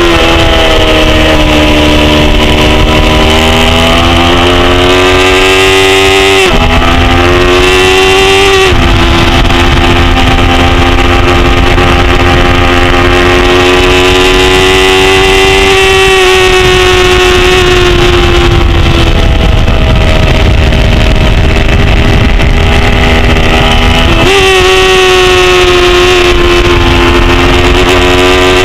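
Engine of a 250 cc production racing motorcycle running hard at high revs under a helmet-cam microphone, loud, with wind rush. The engine pitch sags and climbs through the corners and jumps suddenly at gear changes, about seven seconds in, again shortly after, and near the end.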